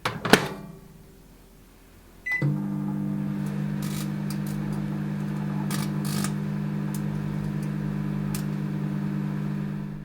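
Microwave oven door shut with a clack, a short beep about two seconds later, then the oven running with a steady hum. Several sharp cracks sound over the hum.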